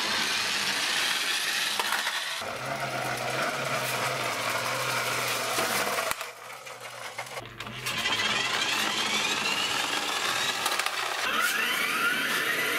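Toy trucks rolling on a hard surface, their small gear motors whirring, in several short takes with a quieter gap about six seconds in. Near the end the whir rises in pitch in a couple of sweeping whines as a truck speeds up.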